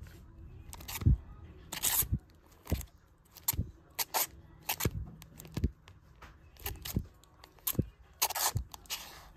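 Bagged-and-boarded comic books flipped forward one at a time in a box: a run of about a dozen crinkly plastic swishes and soft taps at an uneven pace.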